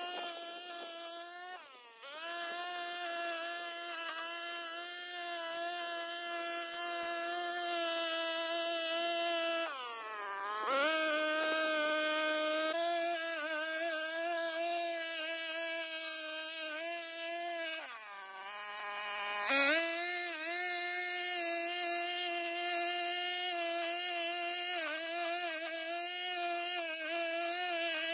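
Backpack brush cutter's small engine running at high revs with a steady, high-pitched whine, its pitch dipping and picking back up about three times (near 2 s in, around 10 s, and around 18 to 19 s) as the cutting head works through weeds.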